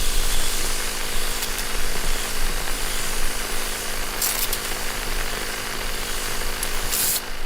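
Steady mechanical noise of a power tool running on a construction job, with a low steady hum under it and two brief louder hissing bursts, about four seconds in and near the end.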